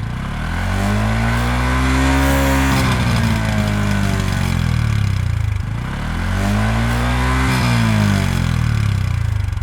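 Honda Super Cub C125's single-cylinder engine, warm and on its factory exhaust, revved up toward redline and back down twice, each rev climbing over about two seconds and falling away more slowly.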